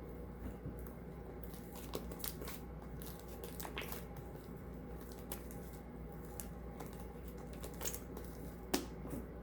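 Fluffy shaving-foam slime being kneaded and stretched by hand, giving off irregular small sticky clicks and pops, with a sharper click near the end.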